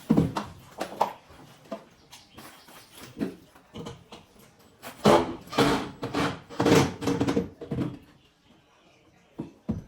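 Wooden cabinet parts being handled and fitted: irregular knocks, clatters and scrapes, with a louder, busier run of them in the middle.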